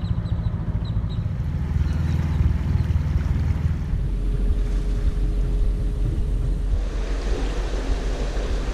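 Sailboat's inboard engine running at low speed with a steady, rhythmic beat; its note sinks lower about four seconds in. A rushing hiss of wind and water comes up near the end.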